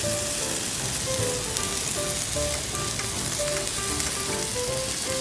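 Sausages and black tiger prawns sizzling on a wire grill net over charcoal: a steady, dense crackling hiss. Light background music plays along.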